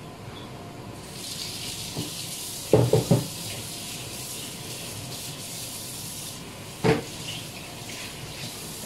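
Kitchen tap running for about five seconds, turned on about a second in and off after six, with a quick run of three clunks around three seconds and a single knock near seven seconds.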